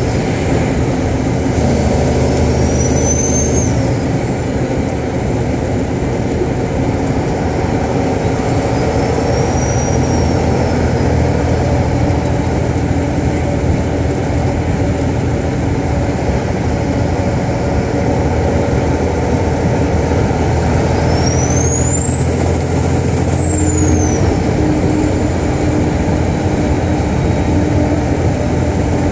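Mechanical 575-horsepower single-turbo Caterpillar diesel in a 2001 Kenworth truck running loud, its turbo whistle rising and falling three times, the longest and highest about three-quarters of the way through.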